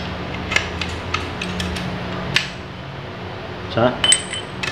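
Light metallic clinks and taps as parts of a dismantled gondola hoist are handled, a few scattered ticks and then a short louder rattle near the end, over a steady low hum.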